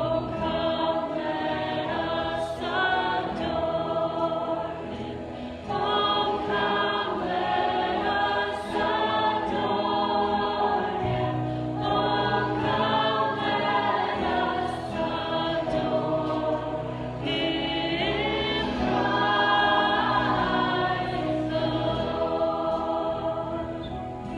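Worship music: several voices singing a Christian worship song together, over instrumental accompaniment, in long held notes.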